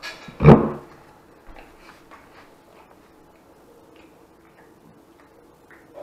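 A cat eating grilled trout from a plate, heard as scattered faint clicks and ticks. One loud thump comes about half a second in.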